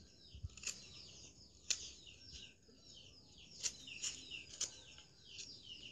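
Small birds chirping continuously in many short, quick falling notes, with a few sharp clicks scattered among them.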